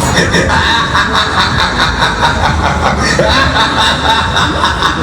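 Orbitor-type fairground ride in motion: a loud, fast, even clatter of about six beats a second, with short whoops and laughter from the riders.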